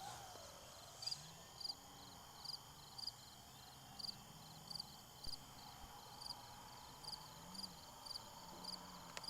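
Insects chirping in a steady rhythm, about two high chirps a second, over the faint drone of a distant model airplane's motor that slowly rises and falls in pitch.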